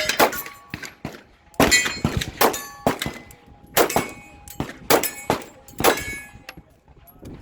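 A string of pistol shots, roughly one to two a second, with steel targets ringing after the hits.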